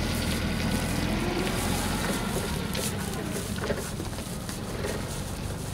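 A steady low machine hum, with light rustling and a few faint clicks as plastic artificial-hedge strands are pushed through the diamonds of a chain-link fence.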